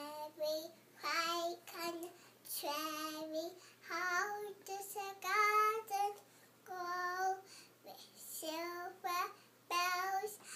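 A toddler singing in short phrases of held notes, with brief gaps between them.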